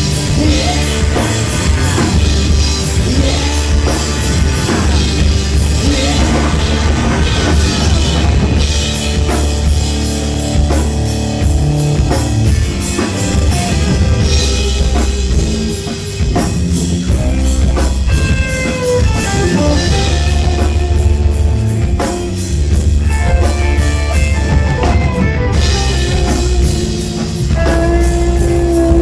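A rock band playing an instrumental section, with a drum kit keeping a steady beat under a heavy bass line and a lead guitar line that bends in pitch and holds notes.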